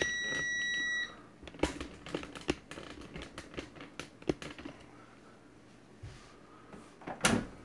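GoWISE USA air fryer's end-of-cycle beep, one steady high tone of about a second, the second of two beeps marking that the cooking time has run out. Then a run of light clicks and taps, and one louder clunk near the end.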